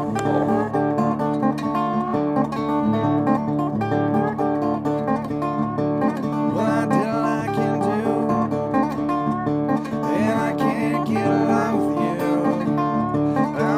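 Background music: acoustic guitar picked in a country style, running steadily.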